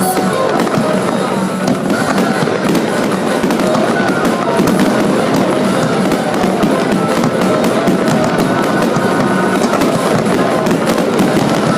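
Fireworks going off in a dense, continuous run of bangs and crackles, with music playing underneath.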